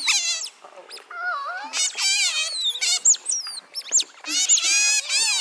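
A group of Asian small-clawed otters chirping and squeaking together, many quick high calls overlapping and sliding up and down, the chorus thinning briefly about a second in and swelling again near the end. This is their begging call for food.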